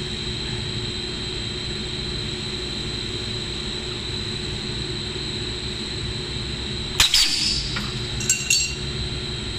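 Extrusion blow molding machine running with a steady hum and whine. About seven seconds in, a sharp clack and a short hiss of air as the mold cycles, followed by a few lighter clicks.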